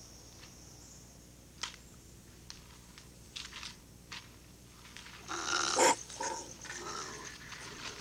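A paca calling in its burrow: a loud cry about five seconds in, then a shorter one, after a few faint clicks. A hollow bone chamber in the paca's skull gives its cries a strange resonance.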